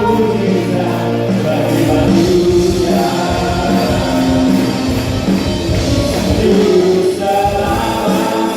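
Sunday school choir singing an Indonesian worship song in unison, with band accompaniment.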